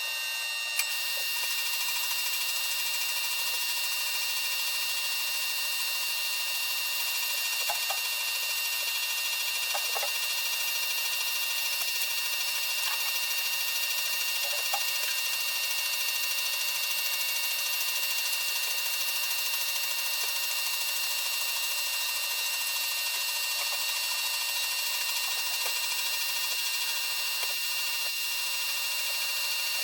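A power tool or machine running steadily with a high-pitched whine, with a single sharp click about a second in.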